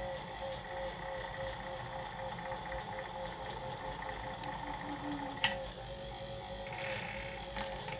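Small watchmaker-style lathe running with a steady, evenly pulsing hum while a cloth is held against the spinning motor shaft in its collet. A single sharp click comes about five seconds in.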